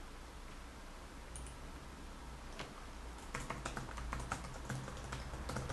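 Typing on a computer keyboard: a lone key click about two and a half seconds in, then a quick irregular run of key clicks from about three seconds in as a short sentence is typed.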